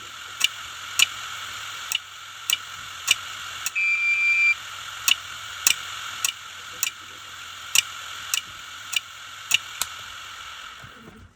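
Hard disk drive's read/write head knocking: sharp clicks about twice a second over the steady whir of the spinning drive, the click of death of a failing drive. A short beep sounds about four seconds in, and the drive's sound stops near the end.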